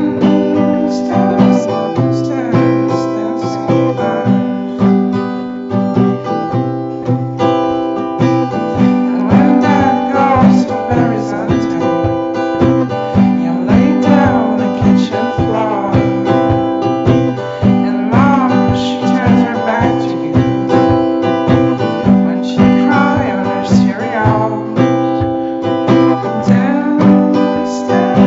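Music led by strummed acoustic guitar chords in a steady rhythm, with a wavering melody line over them.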